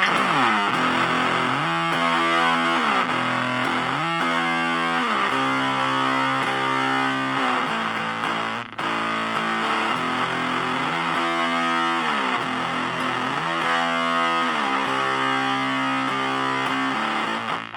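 Electric guitar played through a handmade one-knob fuzz pedal built on the Colorsound one-knob fuzz circuit with NPN silicon transistors, giving a spluttering fuzz. A distorted riff of notes that slide in pitch and then hold, with a brief break about nine seconds in.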